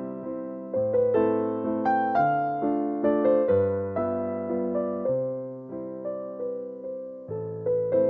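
Slow, calm background piano music: single notes struck one after another over low bass notes, each note fading before the next.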